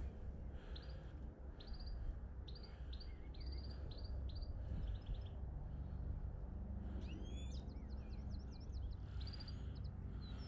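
Small birds chirping, a string of short high notes repeated every half second or so, with a quick run of sweeping notes about seven seconds in, over a steady low rumble.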